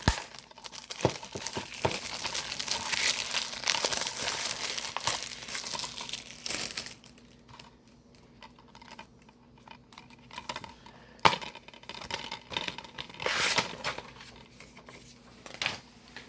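Plastic shrink-wrap being torn and crinkled off a DVD case, dense for about the first seven seconds, then giving way to scattered clicks and rustles of the case being handled.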